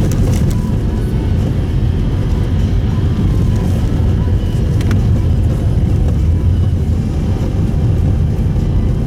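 Steady low road and tyre rumble inside the cabin of a Subaru Impreza Sport on a snow-covered road, with a couple of brief knocks from bumps or snow under the tyres.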